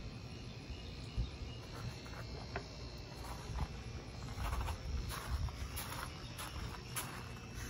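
Steady high chirring of insects, with short bursts of rustling from about halfway through as a Cane Corso rolls and wriggles on its back in the grass.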